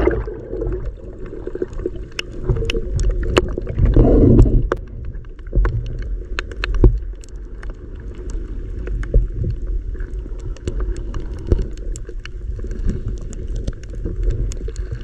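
Underwater sound picked up by a submerged action camera: a muffled low rumble of moving water with many scattered sharp clicks, and a louder low gurgling swell about four seconds in.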